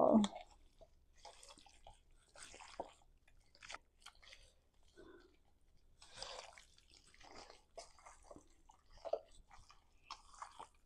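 Seasoned, olive-oiled raw chicken pieces being tossed and rubbed by hand in a stainless steel bowl: faint, irregular wet sounds of the meat being worked.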